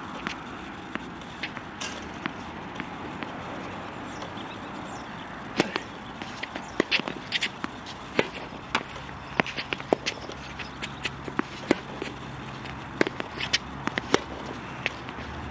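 Tennis balls struck by racquets and bouncing on a hard court during a rally: a run of sharp pops and smacks at irregular intervals, near and far.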